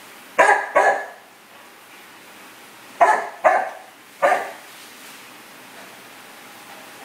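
Chow chow barking in short sharp barks at being teased: two close together about half a second in, then three more a few seconds later.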